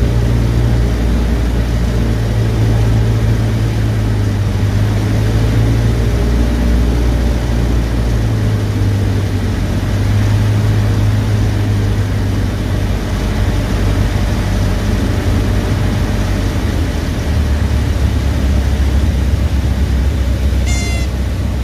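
Cessna 152's four-cylinder Lycoming engine and propeller droning loudly through the cabin in flight, its low tone shifting in pitch a couple of times. A brief high chirp near the end.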